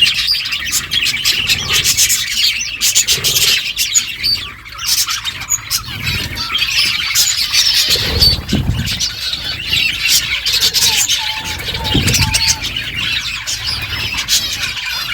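Budgerigars chirping and chattering without a break, with many sharp clicks among the calls. Two low rumbles come through, about halfway in and again near the end.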